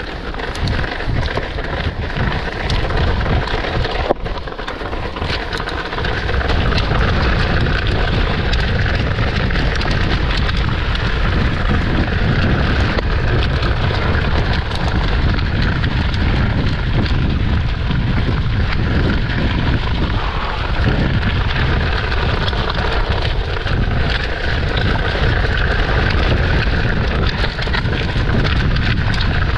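Riding noise from a mountain bike descending a wet dirt trail: wind buffeting the camera microphone over the rattle of the bike and its tyres on the dirt. The low wind rumble gets heavier about six seconds in, and there is a single sharp knock about four seconds in.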